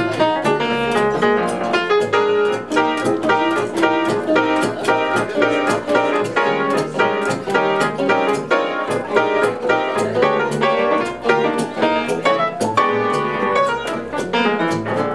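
Live jazz trio playing, with an acoustic piano taking the lead in quick runs of notes over a bass line underneath.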